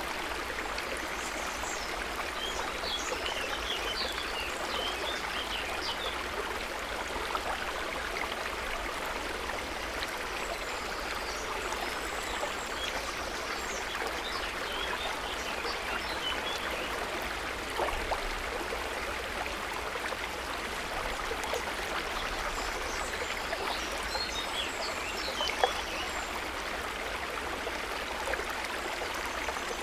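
River water running steadily over stones in a continuous trickling rush. Faint high chirps come and go, and two brief sharper splashes stand out, about 18 and 26 seconds in.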